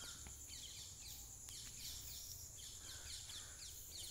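Faint background ambience of chirping: many short chirps falling in pitch, a few each second, over a steady high-pitched hiss and a low hum.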